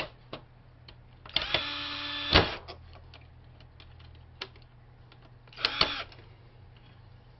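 Ryobi cordless drill/driver backing screws out of a DVD-ROM drive's metal frame: the motor whines for about a second, ending in a sharp click, then runs again briefly near the end, with light clicks and taps of the metal parts being handled in between.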